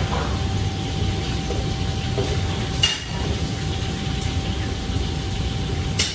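Steady roar of a commercial kitchen's wok range and extraction hood with a constant hum, broken by two sharp metal clanks of utensils on pans, one about three seconds in and one near the end.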